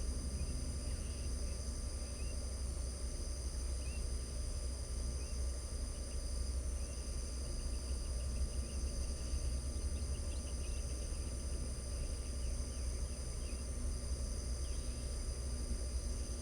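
Crickets or other night insects trilling steadily in several high, unbroken tones, with a few faint short chirps scattered among them. Underneath runs a steady low rumble, the loudest part of the sound.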